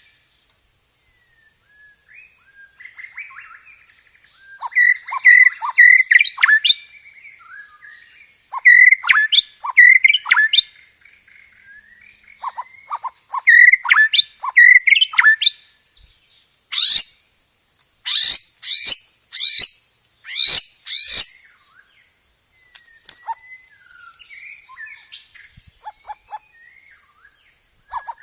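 White-rumped shama (murai batu) singing loud, clear phrases: bursts of fast chattering rolls, then about five loud, sharp sweeping notes around a second apart, then quieter twittering. A faint steady high-pitched hiss runs underneath.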